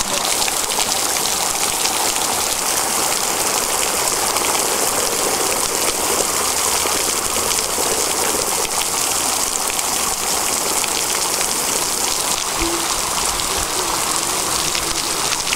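Garden fountain jets showering spray down onto a lotus pool: a steady, even rush of falling water.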